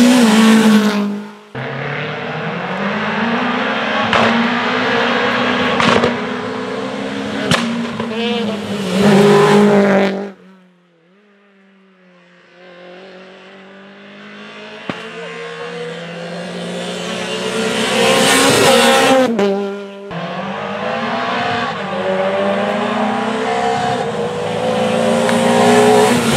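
Rally cars at full throttle, passing one after another, engines revving hard and climbing in pitch through the gears. About ten seconds in, the sound dies away almost to nothing. Then the next car's engine builds steadily to a loud pass, and another car follows.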